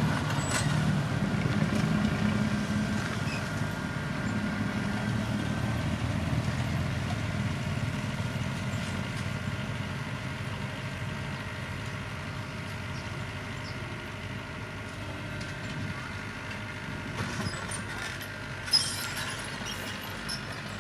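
Heavy diesel truck engine running steadily, slowly growing quieter, with a few light clicks late on and one sharp clank near the end.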